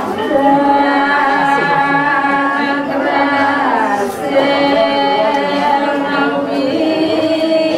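Slow ceremonial chant sung without accompaniment: voices holding long drawn-out notes that shift in pitch only now and then.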